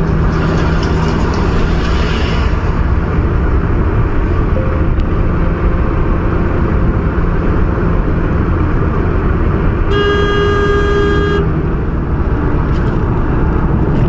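Steady road noise from a car driving in the rain: engine hum and tyre hiss on a wet road. About ten seconds in, a vehicle horn sounds once for about a second and a half.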